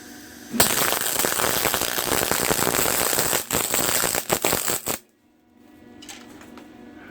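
Electric welding arc crackling steadily for about four seconds, then sputtering in a few short bursts before it stops.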